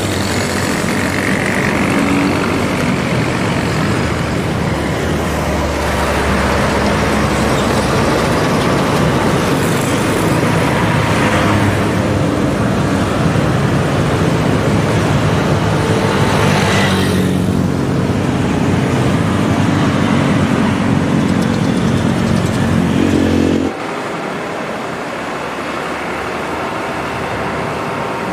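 Loaded heavy diesel truck engines running under load amid road traffic, with motorcycles and cars swishing past twice. About four seconds before the end the sound cuts suddenly to a quieter truck engine running.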